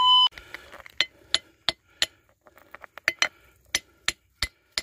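Steel hammer striking a quartz rock to break it open and look for gold inside: a dozen or so sharp clinks, often in quick runs of about three a second. A brief steady tone sounds at the very start.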